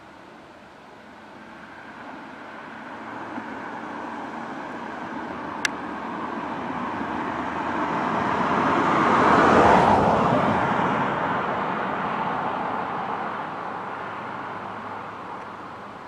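A road vehicle passing by: its tyre and engine noise swells slowly, peaks about ten seconds in, then fades away. There is a single sharp click about six seconds in.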